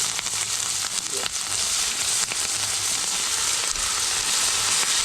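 Chicken gizzard pieces sizzling steadily as they fry in hot oil in a Dutch pot, with a few small pops.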